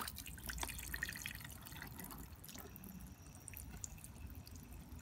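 Thin stream of water pumped from a toy sink's faucet by a small DC pump running at 5 volts, spattering and dripping into the plastic basin. A click at the very start as the power cable is plugged in.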